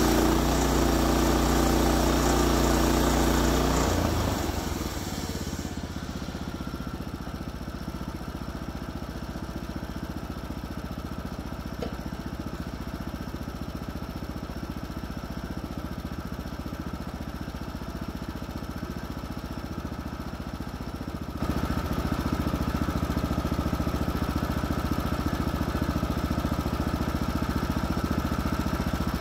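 Woodland Mills HM126 sawmill's 14 hp engine running fast, then throttled down to a quieter idle about four seconds in. It steps up louder again about three quarters of the way through and runs steadily to the end.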